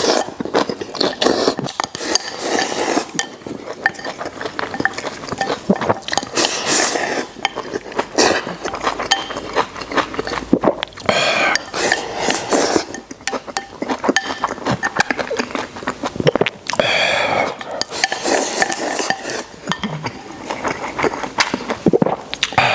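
Someone eating from a bowl: utensils click and scrape against the dish, with chewing and slurping in between.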